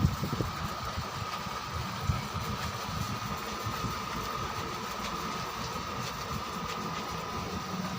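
A motor running steadily: a low rumble with one steady high whine over it.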